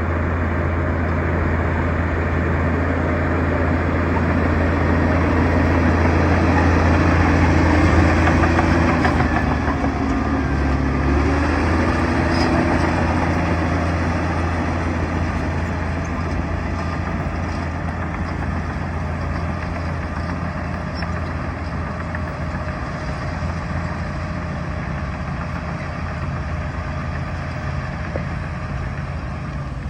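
Bulldozer's diesel engine running steadily under load, swelling louder about eight seconds in and then easing off slightly.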